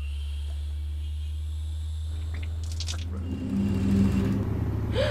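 A low, steady rumbling drone, with fainter higher tones swelling in about three and a half seconds in and fading near the end.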